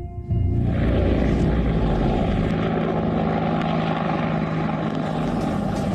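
AH-64E Apache attack helicopter's engines and rotor running close by, a loud steady noise that cuts in suddenly just after the start as the helicopter lifts off in its own dust.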